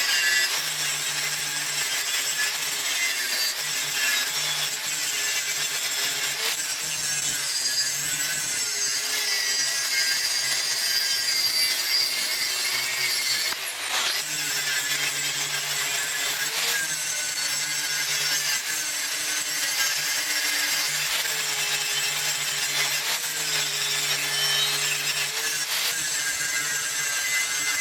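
Hand hacksaw cutting through a steel pedestal in continuous strokes, with a brief pause about halfway through.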